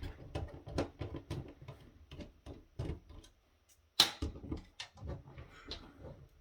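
Irregular small clicks and taps of plastic and metal parts being handled and worked loose while a mobile video phone is taken apart, with one sharper click about four seconds in.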